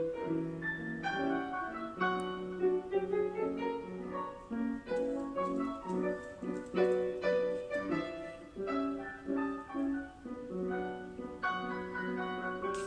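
Background piano music: a melody of separate notes over a lower accompaniment.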